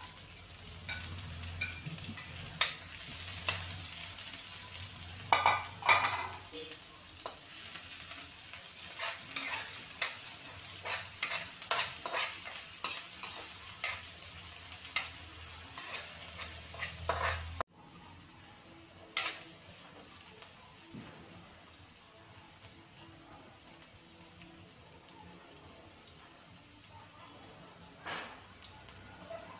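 Chopped onion, garlic and ginger sizzling in oil in a wok while a metal spoon stirs them, clicking and scraping against the pan many times. A little over halfway through the sound drops suddenly to a quieter, steady sizzle with only an occasional click.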